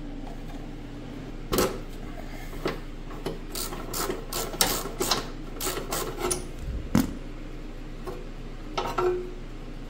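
Socket ratchet clicking in irregular runs as a spark plug is loosened and backed out of the Briggs & Stratton Twin II 18 I/C engine's cylinder head, with one more click near the end.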